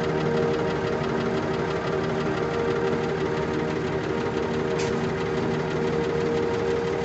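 Diesel engine of a Tadano 50-ton telescopic crane, a Nissan unit, running steadily at a constant speed. A brief high-pitched sound cuts in about five seconds in.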